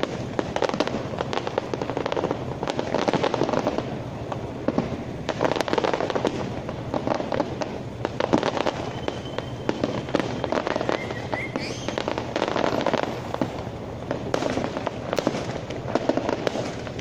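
Fireworks display: aerial shells bursting in a dense, continuous run of bangs and crackling.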